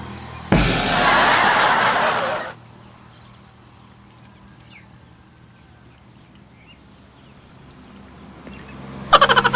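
Water splashing for about two seconds, then faint duckling peeps. Near the end loud, rapid peeping starts.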